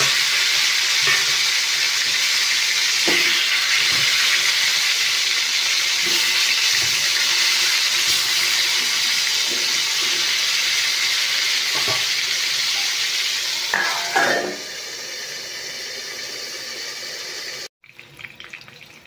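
Eggplant slices sizzling loudly as they fry in hot oil in a nonstick wok, with a few light knocks of a utensil against the pan. About fourteen seconds in there is a louder burst, after which the sizzle is quieter.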